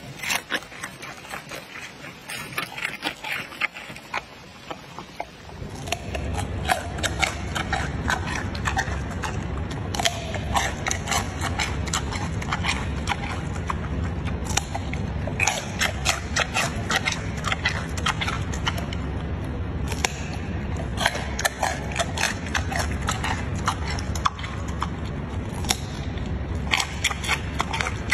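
Giant panda chewing a carrot: rapid, crisp crunches all through. About five seconds in, a steady low rumble joins the crunching and carries on under it.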